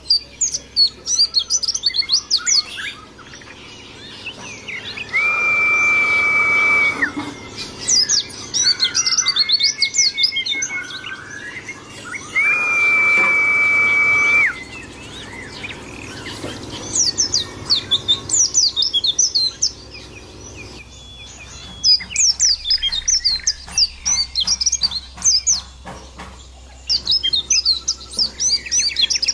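White-eye (pleci) singing in repeated bursts of fast, high twittering chirps. Twice, a long, steady, flat whistled note holds for about two seconds.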